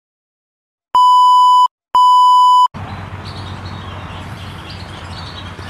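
Two long electronic beeps of the same steady pitch, each about three-quarters of a second and a second apart, loud. Just after the second beep, steady outdoor background hiss with a low rumble cuts in abruptly.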